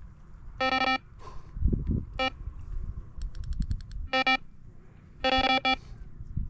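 Electronic carp bite alarm beeping several times: a longer tone, a short blip, then two longer tones, as the line is moved across the alarm while the rod and bobbin are being set. A quick run of faint ticks comes in the middle, with low handling knocks.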